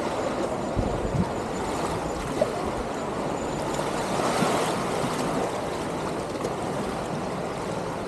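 Beach ambience: small waves lapping at the shoreline, with a faint hubbub of distant bathers' voices.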